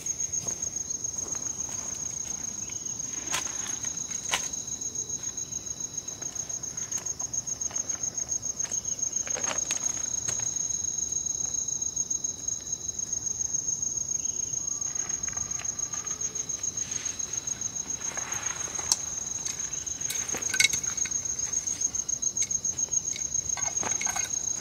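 Night insects calling steadily, a high, rapidly pulsing chirr that keeps on without a break. A few faint knocks and clicks sound now and then over it.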